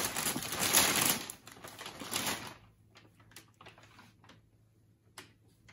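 Thin plastic bag crinkling and rustling as a cat pushes into it, dense and loud for about the first two and a half seconds, then thinning to scattered faint crackles and a single sharper tick near the end.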